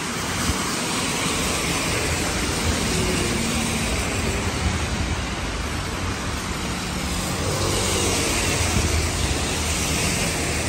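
Heavy rain on a busy city road: a steady hiss of rain and tyres on the wet tarmac, with the engines of passing cars underneath.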